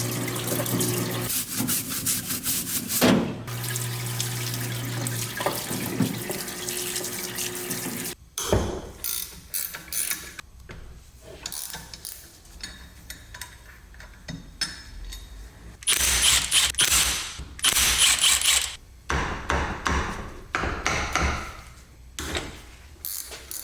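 Parts-washer pump spraying cleaner hard onto a part, a steady hiss of spray over an electric motor hum, which cuts off about eight seconds in. After that come scattered short metallic clicks, rattles and scrapes of a part being handled.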